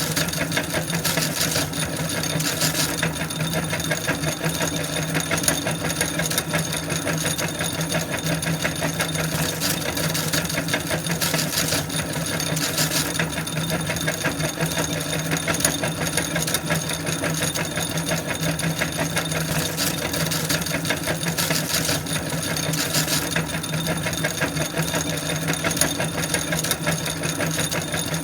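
Electric meat grinder running steadily with a low motor hum while it grinds potato chips, with louder bursts of crunching every few seconds.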